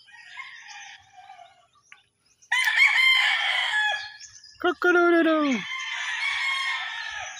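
Roosters crowing, several calls one after another. The loudest crows come about two and a half and five seconds in, and the second slides down in pitch as it ends.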